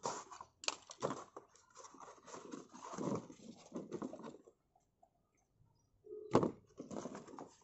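Box cutter slitting the packing tape on a cardboard box, then the flaps opening and hands sorting through the paper-wrapped chakri spinners inside, with scraping and light clicks. A short gap near the middle, then a louder knock about six seconds in and more handling.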